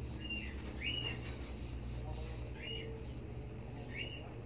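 Young nursing kittens mewing: four short, high, squeaky calls that each rise and fall, over a steady low hum.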